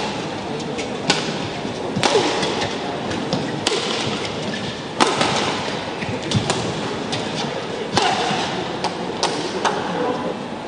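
Badminton rackets striking a shuttlecock in a fast doubles rally: sharp, irregular smacks about a second apart, the loudest about five seconds in, over the steady noise of the hall.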